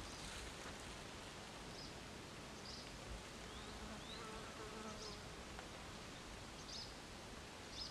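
Quiet outdoor ambience with a flying insect buzzing, most plainly about four to five seconds in. Short, faint high chirps come every second or two.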